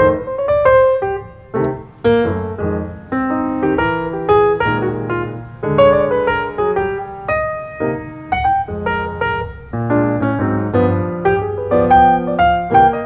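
Background piano music: a piano playing a steady run of single notes and chords.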